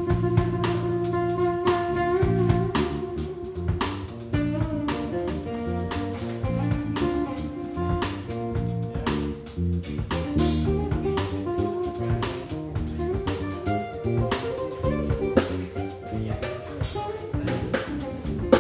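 Live band playing a jazz-funk instrumental: electric guitar over a drum kit, with a bass line moving underneath.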